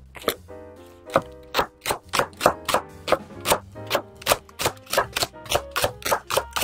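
Kitchen knife slicing a green onion into thin rings on a wooden cutting board: crisp knocks of the blade on the wood, a few slower cuts at first, then a steady rhythm of about four a second. Background music plays underneath.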